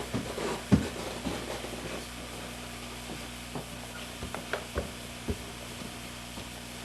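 Scattered light plastic clicks and handling knocks, most of them in the first second, as a camcorder battery pack is handled and swapped. Underneath is a steady faint hiss and a low hum.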